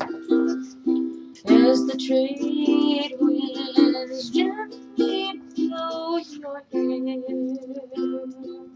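Ukulele strummed in a steady rhythm of chords. A wavering higher-pitched sound rises over the strumming a few times, loudest about a second and a half in.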